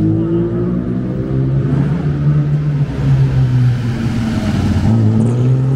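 Classic car engines running at low revs, their note shifting slightly up and down in pitch.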